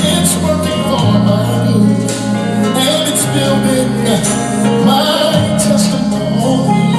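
Live gospel music: a band with sustained chords and cymbals, with singing over it.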